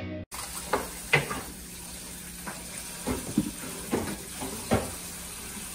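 Kitchen tap running into a basin while vegetables are rinsed, with a steady splashing hiss and several sharp knocks and clatters as the vegetables and basin are handled.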